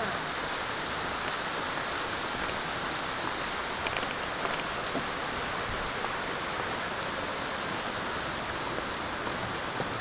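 Steady rush of a small waterfall pouring into a pool, with a few faint clicks about four to five seconds in.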